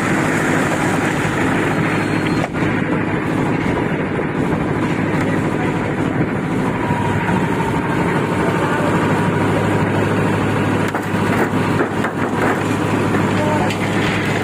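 Concrete mixer machine's engine running steadily at a slab pour, a continuous loud drone with a few faint knocks over it.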